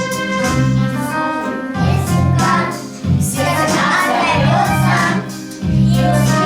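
A group of children singing a song together over a recorded backing track with a repeating bass line.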